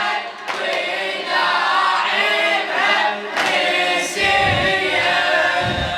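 A group of voices singing together in a Shia Muharram elegy (latmiya), in long held lines, with two deep low thumps near the end.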